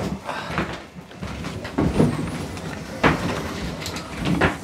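Chairs and table knocked and scraped as people get up and move away, with a few sharp knocks about a second and a half, three seconds and near the end.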